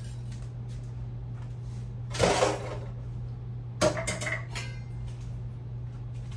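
Metal utensil knocking and scraping against a cooking pot twice, about two seconds in and again just before four seconds, over a steady low hum.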